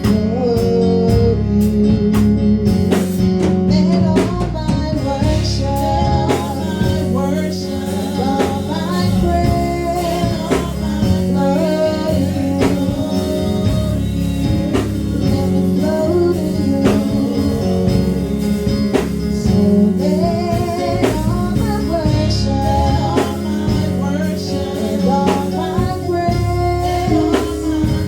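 Gospel worship music: a band with guitar and drums playing a steady beat, with singing over it.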